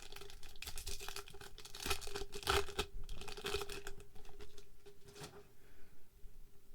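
Foil Pokémon booster pack being torn open and crinkled in the hands, a dense run of ripping and rustling that dies down after about five seconds.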